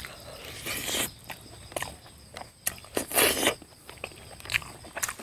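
Close-up eating sounds: biting and tearing into a chicken leg held in the hand, with wet chewing and small clicks between. The loudest bite comes about three seconds in, after a smaller one near the start.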